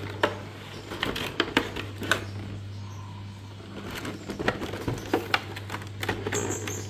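A cardboard box being handled and turned over in the hands: irregular taps, scrapes and rustles of the cardboard and packing tape, in two busy spells. A steady low hum runs underneath.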